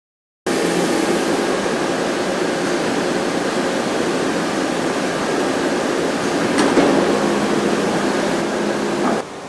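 JTEKT FA800S horizontal machining center cutting metal in heavy machining: a dense, steady cutting noise that starts abruptly about half a second in and drops briefly near the end.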